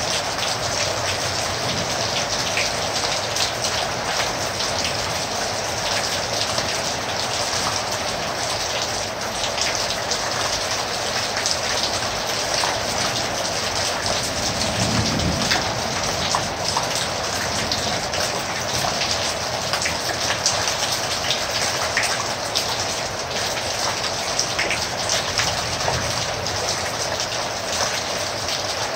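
Heavy rain falling steadily, a dense hiss with many close drops ticking. There is a brief low rumble about halfway through.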